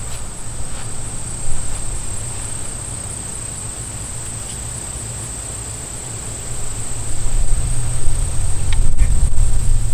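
Insects buzzing in one steady high tone, with a low rumble building from about seven seconds in that becomes the loudest sound.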